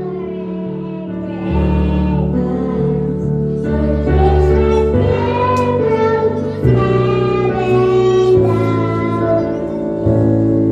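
A child singing a song over instrumental accompaniment, holding long notes between phrases.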